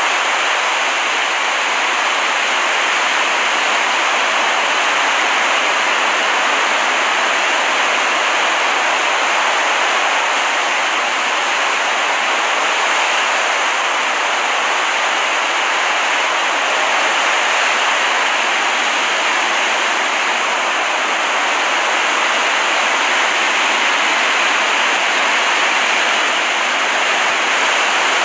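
Steady rush of water from a relaxation ambience track, even and unbroken, with no separate wave surges.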